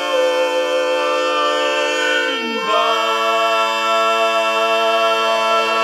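Male a cappella quartet, four voices singing in close harmony, holding a long sustained chord. About two and a half seconds in the voices slide down together onto a new chord and hold it: the drawn-out closing chords of a gospel song.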